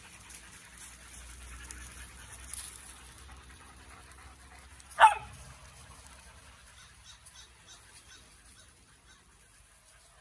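A dog gives a single short, sharp bark about five seconds in, much louder than the quiet yard background around it.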